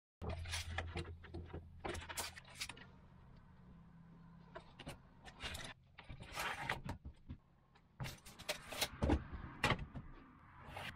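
Low steady motor hum with irregular clicks, knocks and rattles, starting abruptly after digital silence.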